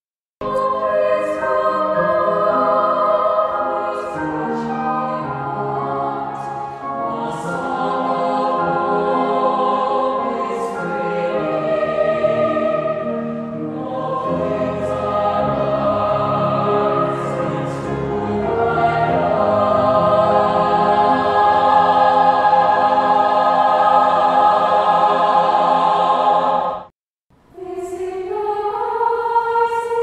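Children's choir singing held, blended notes in several parts. Near the end the singing cuts out for a moment, then a new phrase starts with rising notes.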